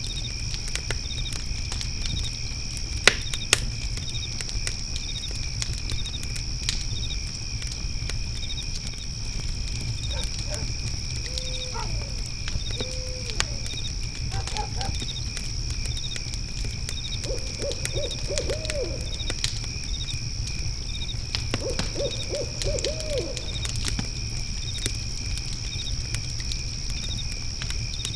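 An owl hoots a few times about midway, then gives two runs of quick wavering notes. Under it are a steady chorus of crickets, a crackling fire with a few sharp pops about three seconds in, and a low rumble.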